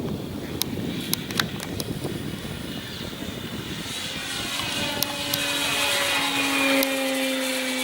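Electric RC model plane's E-flite Power 60 motor and propeller droning as the plane flies closer, growing louder from about halfway in and dropping slightly in pitch as it passes near the end. A few sharp clicks in the first two seconds.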